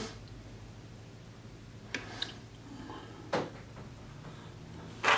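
A few short, faint taps and knocks from fingers handling a smartphone with a USB card reader plugged into it, the last one, near the end, the loudest, over a low steady hum.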